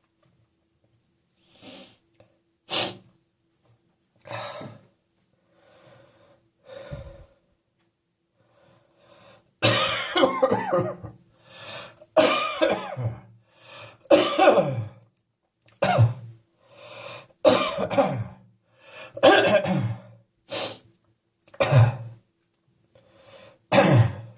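A person with a chesty cough coughing. A few short, fainter coughs and breaths come first, then from about ten seconds in a run of loud coughing fits, one every second or two.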